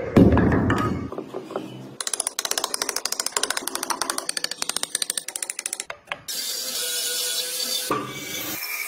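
Woodworking tool sounds: a loud crunch of wood being cut at the start, rapid even clicking for about four seconds, then a band saw running steadily from about six seconds in.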